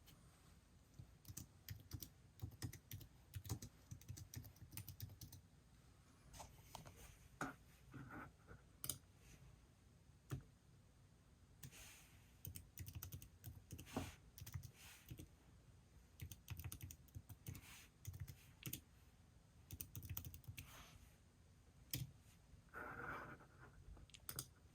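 Typing on a computer keyboard: quiet, irregular key clicks in short flurries separated by pauses.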